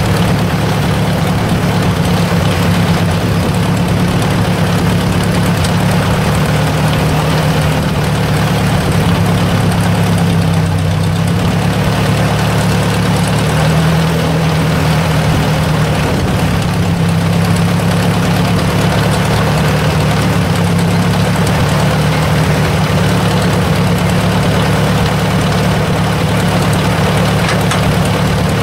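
1956 Ford tractor's four-cylinder engine idling steadily.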